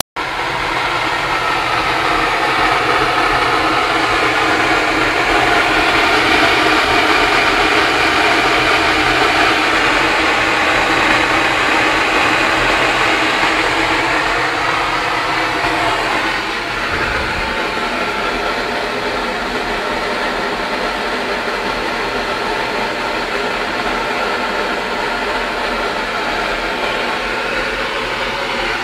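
Three burners of a brass pressure stove burning at full flame with a loud, steady hiss, heating a large pot of water that comes to a rolling boil. The sound eases slightly about halfway through.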